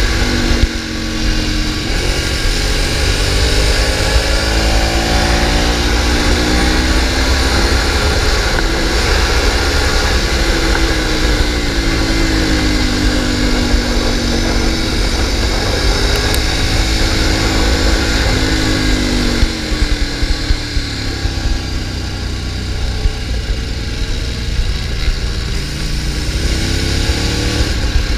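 Motorcycle engine at speed on a racetrack, its note rising and falling again and again as the rider accelerates and slows, under a heavy rush of wind noise.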